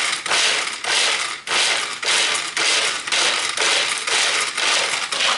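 Pull-cord manual food chopper chopping walnuts and cashews: about two quick pulls a second, each one a rasping whir of the spinning blades and the nuts rattling in the plastic bowl.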